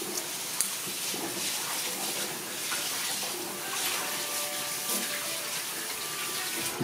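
Water running from a tap and splashing, as rice is washed in water.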